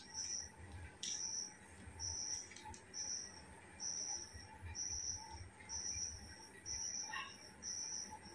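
A cricket chirping steadily, one short high chirp about every second, with a couple of faint clicks from handling the camera gear.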